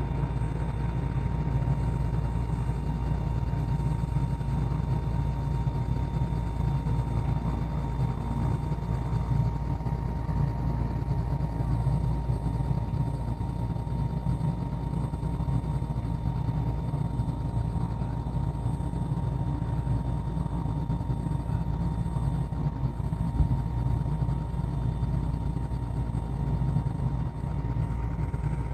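Small two-bladed helicopter running on the helipad: a steady low engine-and-rotor drone with a constant thin whine over it.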